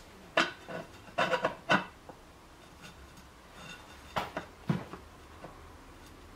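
Cast-metal cover of an Elite Turbo Muin bike trainer knocking and clinking against its housing as it is fitted by hand. There are several sharp knocks in the first two seconds, then a few more about four to five seconds in.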